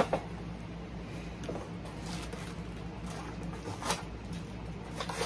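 Mystery-mini packaging being handled and torn open, a few scattered crinkling strokes, with a sharp tap right at the start and a steady low hum underneath.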